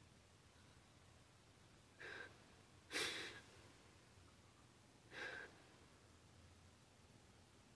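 A woman crying: three short sobbing breaths, the second the loudest, between stretches of near silence.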